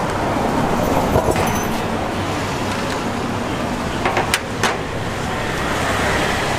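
Steady road traffic noise, with sharp clinks of ceramic plates being set down on a steel trolley: a couple about a second in and a few more around four seconds in.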